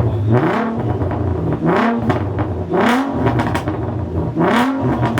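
Car engine idling and blipped four times, each rev climbing and dropping straight back to idle.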